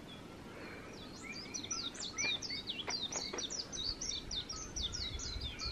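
A frog calling in a quick, continuous series of short, high chirps that starts about a second in.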